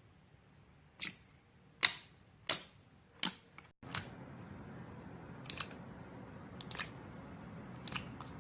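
Glossy slime being pressed and poked, giving a series of sharp clicking pops at irregular intervals, about four in the first few seconds and a few more later.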